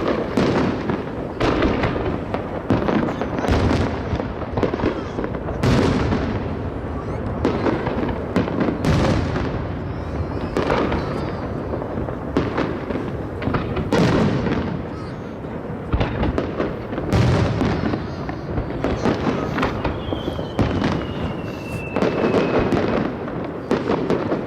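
Aerial firework shells bursting in quick succession, each boom trailing off in a long echo. A thin whistle glides slowly down in pitch about twenty seconds in.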